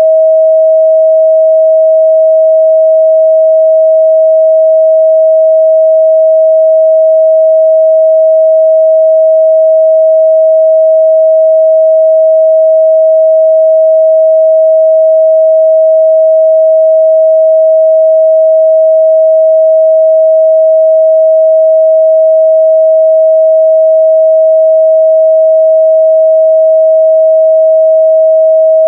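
A steady, loud 638 Hz sine-wave test tone, one pure pitch held without change.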